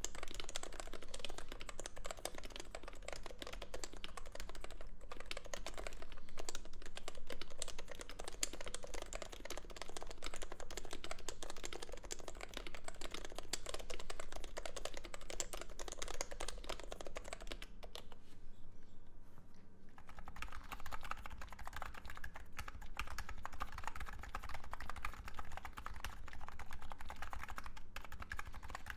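Continuous fast typing on an electro-capacitive keyboard with Topre-style rubber domes. About eighteen seconds in, the typing stops for a couple of seconds, then resumes with a duller, lower sound, as on a second board with different domes.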